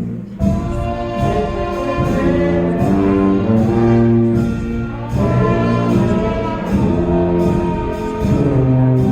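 School concert band playing, with brass (trombones and trumpets) holding sustained chords that change every second or so.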